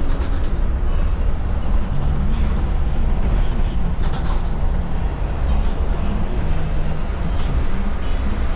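Steady low rumble of a vehicle driving, engine and road noise as heard inside the cabin.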